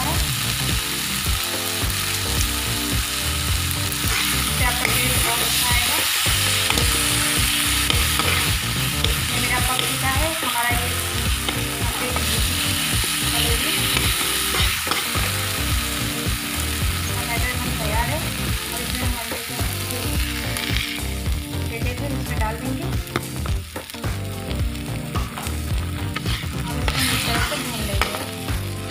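Onion-tomato masala sizzling in a frying pan while it is stirred and scraped with a perforated steel spatula. Near the end, beaten egg is frying in with it.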